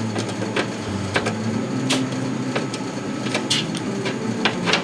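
Scattered clicks and light knocks of PC case fans, screws and case panels being handled while the fans are taken out, over a steady low hum.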